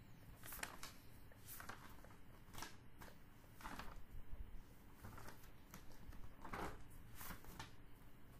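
Faint, irregular rustling close to the microphone: about six short scraping swishes spread unevenly across the stretch, over a low steady hum.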